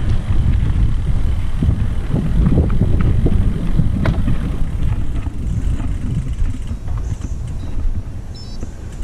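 Wind rumbling over the microphone, with road noise from a gravel bike rolling on pavement. It eases slightly near the end.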